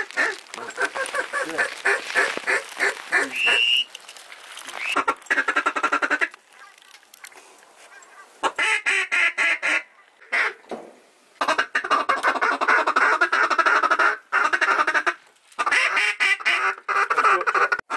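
Hand-held duck calls blown in loud strings of rapid quacks, calling to ducks circling overhead, with a couple of short pauses.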